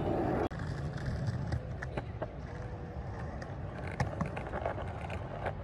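Skateboard wheels rolling on pavement: a steady low rumble with irregular clicks, dropping suddenly to a quieter rumble about half a second in.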